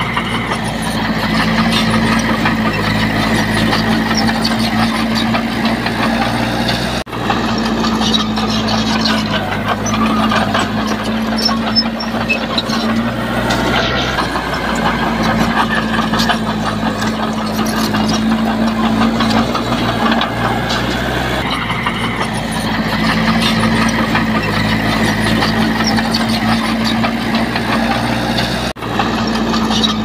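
Diesel engine of heavy earthmoving machinery running steadily, with a constant low engine note and mechanical clatter. It breaks off for an instant twice, about seven seconds in and near the end.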